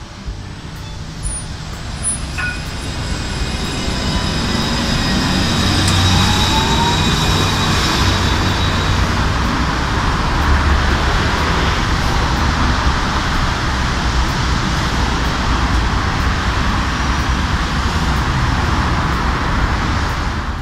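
Alstom Citadis 302 electric tram running along the track close by, with a whine that rises in pitch about seven seconds in and faint high tones above a dense rushing noise mixed with road traffic. The noise builds about four seconds in and stays loud.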